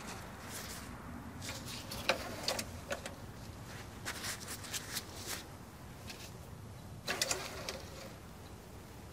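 Faint, scattered clicks and rustles of a metal engine-oil dipstick being wiped with a shop towel and slid in and out of its tube, checking the oil level after a top-up.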